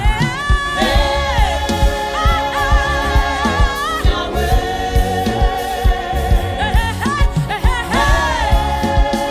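Gospel song: a choir and lead voices sing sustained, wavering lines over a steady drum beat.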